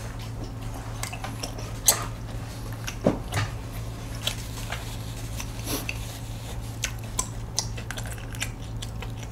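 Close-miked chewing of food, with scattered short mouth clicks and two sharper smacks about two and three seconds in, over a steady low hum.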